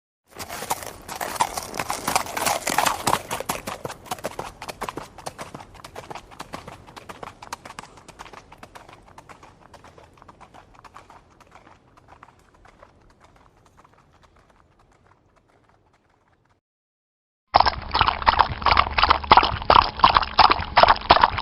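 Hoofbeats of a running horse, loud at first and fading steadily away over about fifteen seconds. After a brief silence, a second burst of rapid hoofbeats starts abruptly near the end, duller in tone.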